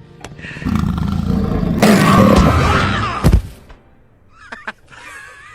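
A loud big-cat-like roar lasting about two and a half seconds, then a sharp hit.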